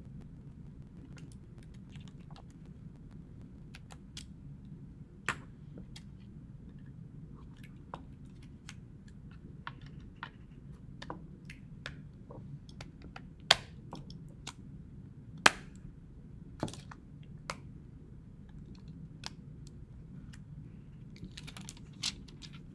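Irregular small clicks and taps, a few of them sharper and louder, over a steady low hum.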